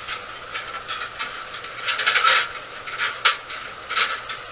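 Irregular light clicks and taps of small hard parts being handled, most likely the server's SATA cable connectors and case, with a cluster about two seconds in and a sharp click a little after three seconds.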